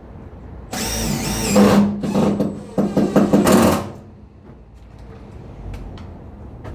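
Handheld power tool running in two bursts of about a second each.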